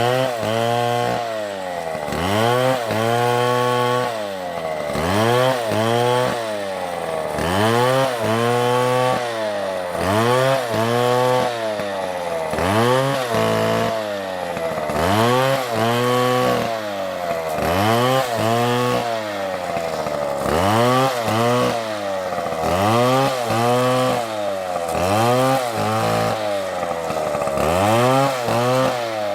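Stihl MS720 chainsaw cutting wood, its engine revving up and dropping back over and over, roughly once every second and a half, as the throttle is worked through the cut.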